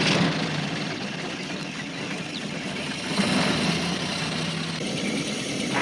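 Small van engine running steadily as the post van pulls away and drives off.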